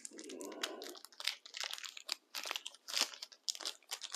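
Accessory packaging being torn open and crinkled by hand: a run of irregular crackles and rips.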